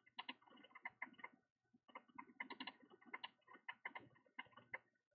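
Faint, rapid, irregular clicking, many small clicks in quick succession.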